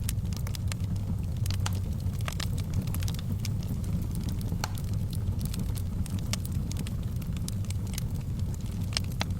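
Fire burning in a fireplace: a steady low rumble with irregular sharp crackles and pops, several a second.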